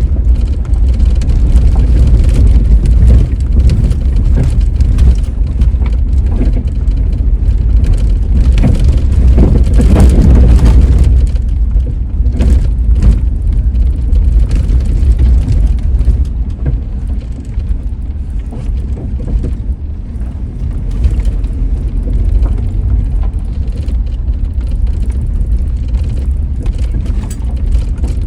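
A vehicle driving on a rough road: a steady low rumble broken by frequent small knocks and jolts, loudest about ten seconds in and easing off in the second half.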